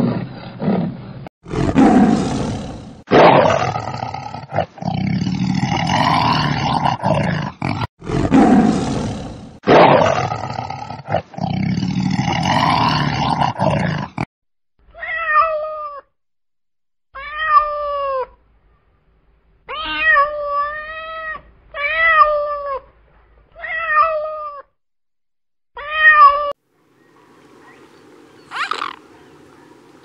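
A donkey braying loudly for about fourteen seconds in long, rasping hee-haw cycles. Then, after a short gap, a cat meows repeatedly in short calls.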